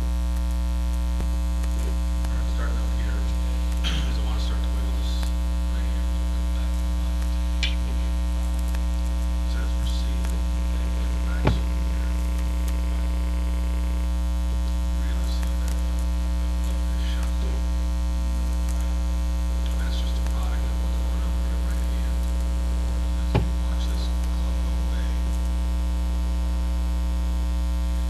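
Steady electrical mains hum with a ladder of overtones, the loudest sound throughout. Two short sharp clicks stand out over it, about twelve seconds apart.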